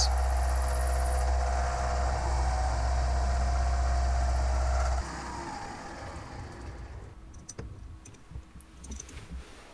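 Milling machine running with an end mill cutting a metal workpiece on a rotary table, a steady machining sound with a low hum. About halfway through it stops abruptly, leaving light metallic clicks and clinks as a spanner works the clamp nuts.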